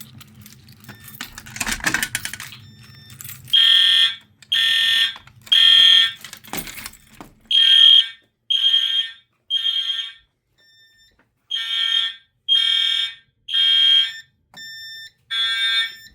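Fire alarm horns, a Genesis ceiling-mount horn strobe and an Integrity horn strobe, sounding the temporal-three evacuation pattern: three high-pitched electronic horn blasts about a second apart, then a pause, repeated. The horns start about three and a half seconds in, after a brief clatter.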